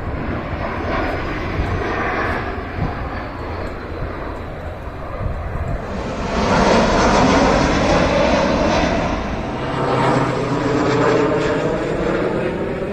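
An aeroplane flying overhead: a steady rushing engine noise with sweeping, shifting tones that swells about six seconds in and stays loud for a few seconds as it passes.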